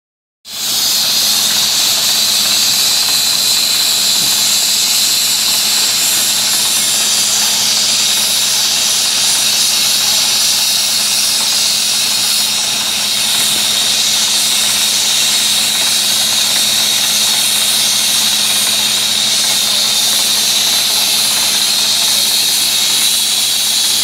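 Hanfa HFW200L crawler water well drilling rig drilling into hard rock: a loud, steady hiss over a constant engine hum, starting about half a second in.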